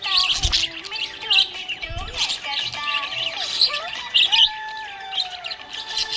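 Budgerigars chirping in a dense, continuous run of short high chirps mixed with gliding warbled notes, with two low thumps in the first two seconds.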